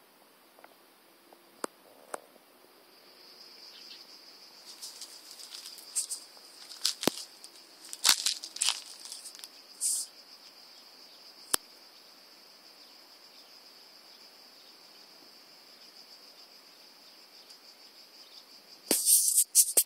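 Insects chirring steadily in a high, even band that swells a few seconds in. Scattered sharp scrapes and rustles break over it, with a loud burst of rustling near the end.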